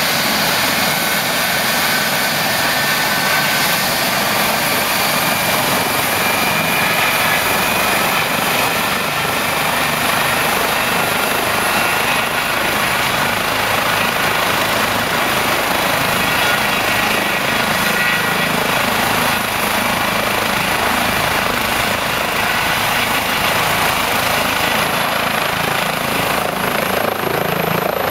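Eurocopter EC135 twin-turbine helicopter running on the ground with its rotors turning: a steady turbine whine over rotor and engine noise, with a high whine rising slightly near the end.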